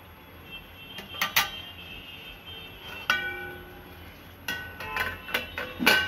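A steel ladle clinks and scrapes against a hammered steel kadai as the food is stirred, giving a few sharp metallic clanks that ring briefly. Near the end a steel lid is set down on the pan in a quick run of clanks, the loudest just before the end.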